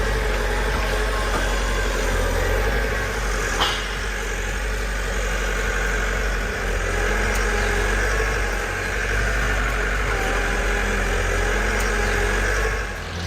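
A heavy machine's engine running steadily, with one sharp click about three and a half seconds in.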